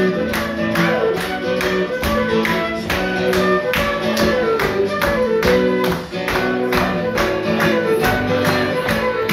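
Live folk music: a steady strummed beat, about three strokes a second, under a melody of held notes.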